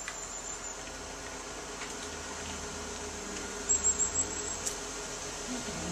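Steady background hum of a room, with a short cluster of soft knocks about four seconds in.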